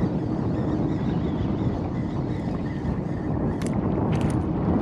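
Wind buffeting the microphone on an open boat, a steady rushing rumble with a faint low hum beneath it. A few short sharp ticks come through near the end.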